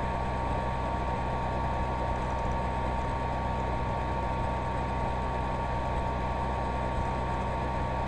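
Steady electrical hum and hiss with a thin, unchanging high whine, holding level throughout: the background noise of the recording's microphone and computer setup.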